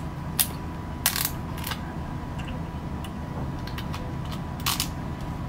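Handling of plastic drink bottles and a small packet at their necks: a few sharp plastic clicks and taps, spread out, over a steady low hum.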